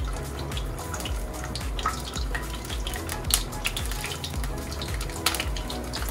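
Starch-coated chicken breast pieces sizzling and crackling in shallow hot oil in a frying pan as they are laid in, with a few sharp pops of spitting oil. Background music with a steady low beat runs underneath.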